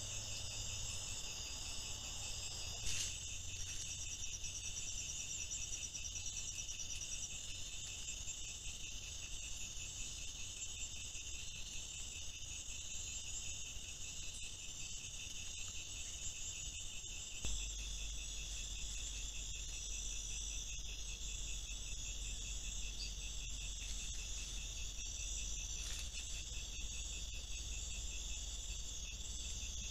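Steady high-pitched chorus of night insects such as crickets, several overlapping trills at once, over a low steady hum. The mix shifts abruptly about 3 seconds and 17 seconds in.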